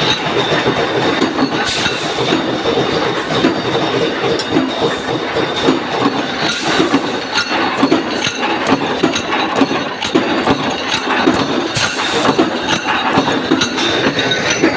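Punch press stamping flat washers, running with a steady, rapid metallic clatter of repeated strokes.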